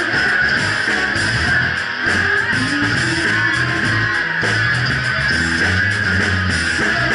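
A live band playing loud: electric guitar and bass over a Ludwig Vistalite drum kit, with a woman singing into the mic.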